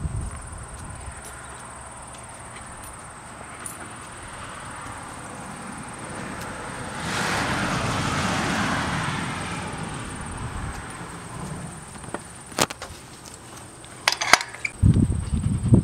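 Outdoor background noise with a rushing swell lasting about three seconds midway. A few sharp clicks come later, and heavy low rumbling thumps start near the end.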